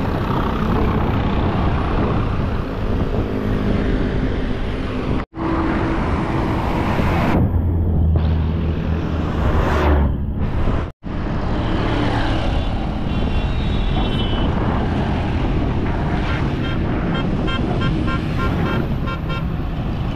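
Dense road traffic: engines of passing auto-rickshaws, trucks and buses, with a vehicle's deep engine rumble passing close in the middle. Near the end a horn sounds in a rapid string of repeated toots. The sound drops out briefly twice.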